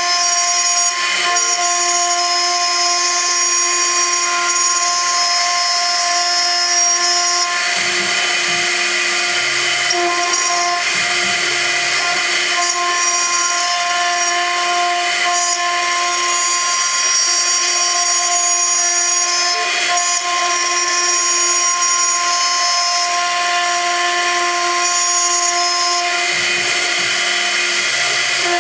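High-frequency spindle of a CNC gantry milling machine running with a steady whine while the cutter machines aluminium. The cutting noise swells for a few seconds about a quarter of the way in and again near the end, with a low hum under it at those times.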